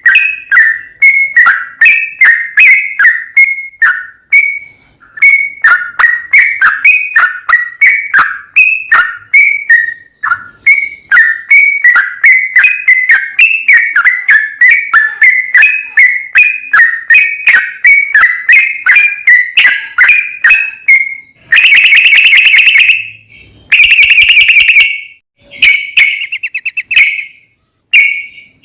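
Yellow-vented bulbul (trucukan) singing: quick runs of short, liquid whistled notes. About 21 s in, it switches to loud, harsh, buzzing trills in bursts of a second or so, the long 'ropel' chatter.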